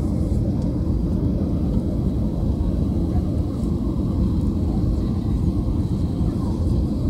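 Steady cabin noise of a Boeing 737-800 jet airliner climbing after takeoff, heard inside the cabin: engines and rushing air blend into a constant low rumble.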